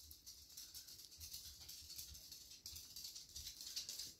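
Near silence: faint room tone with a light, steady crackle.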